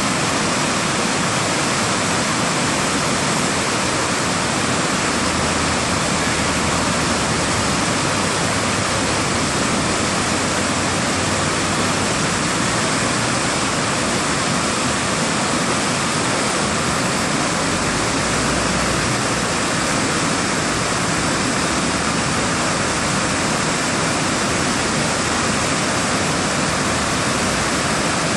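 Steady, loud rush of whitewater from a river in flood pouring through rapids.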